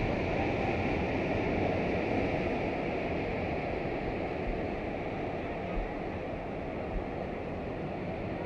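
Ocean surf breaking and washing up a sandy beach: a steady rush of water.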